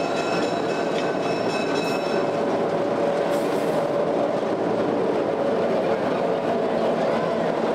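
Diesel locomotive rolling slowly past at close range, its engine running steadily. High, thin squealing tones fade out about two seconds in.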